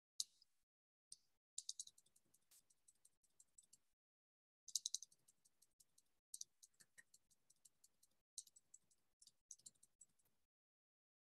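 Faint computer mouse clicks, some single and others in quick runs of several a second, from brush dabs made one click at a time.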